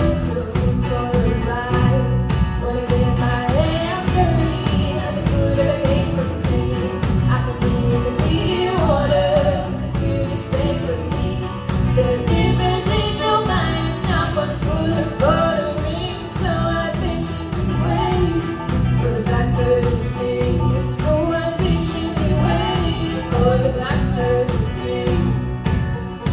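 Live band playing an instrumental break in the song, with a wavering lead melody over a steady beat.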